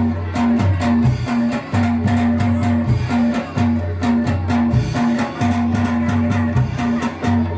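Loud, driving music accompanying a soreng dance, with a heavy bass beat about twice a second, a repeated short note figure, and steady sharp ticks on top.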